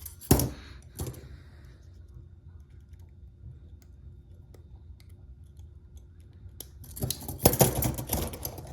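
Metal handcuffs being worked with a lock pick: two sharp clicks early on, faint ticks of the pick, then a dense burst of clicking and rattling of the cuffs near the end.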